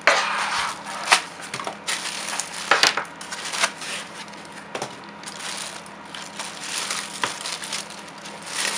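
Clear plastic bag crinkling and rustling in the hands as a keyboard is handled and worked out of its wrapping and foam end caps, with irregular sharp crackles, loudest in the first few seconds.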